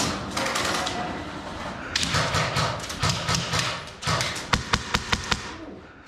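Airsoft gunfire: a quick string of about six sharp shots a little past the middle, amid scuffing and knocking noise.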